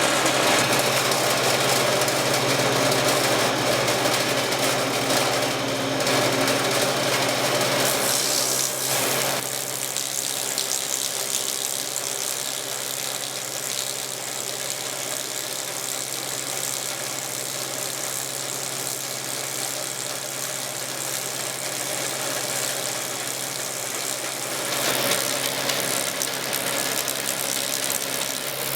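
Log lathe's vertical mill cutter head running through a finish cut on a log: a steady machine hum under a broad whirring noise. The noise is louder and harsher for the first nine seconds or so, eases off through the middle, and swells again near the end.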